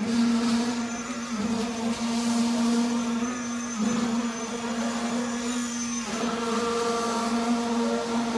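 A machine's motor running steadily with a constant hum at one pitch, wavering briefly a few times.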